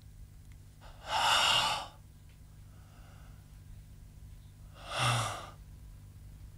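A man's loud gasping breath, then a shorter second breath about four seconds later, acted out as someone jolted back to life from a heroin overdose by a Narcan shot.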